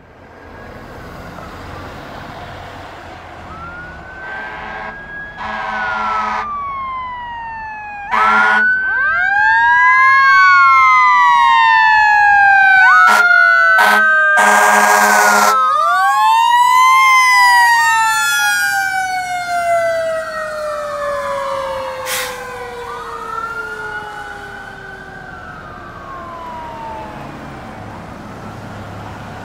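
Fire engine responding with its siren wailing, each cycle rising and then falling slowly, loudest about halfway as it passes. Several blasts of its air horn cut in, the longest a little before the middle.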